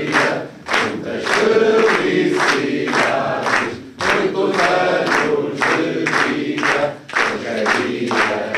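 A group of voices singing together in chorus over a steady beat of sharp strikes, about two or three a second.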